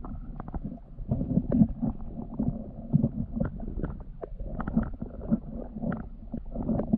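Muffled underwater sound in a shallow river as a gloved hand works the gravel bed: irregular low knocks and clicks of stones and shell bits shifting, with a dull rumble of moving water.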